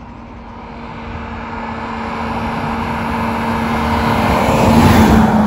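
A car approaching and driving past with a steady engine hum, growing louder to its closest point about five seconds in.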